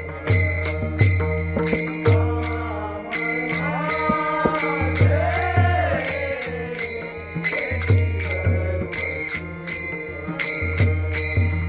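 Marathi Varkari bhajan: a voice sings the abhang over small hand cymbals (taal) clashing in a steady rhythm and deep drum beats, with a steady held drone underneath.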